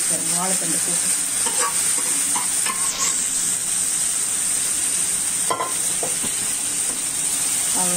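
Hot oil tempering with dried red chillies and curry leaves sizzling steadily around a banana stem and dal kootu in a nonstick pan.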